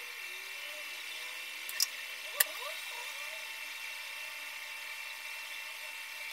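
A steady high-pitched electrical hum with hiss, broken by two sharp clicks a little over half a second apart, about two seconds in.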